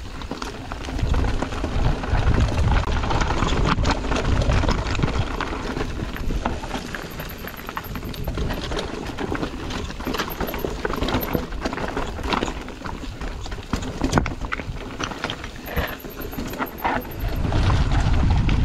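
Mountain bike riding fast down a rough dirt trail: wind buffets the microphone in a low rumble, and the tyres, frame and chain rattle and knock over bumps and rocks.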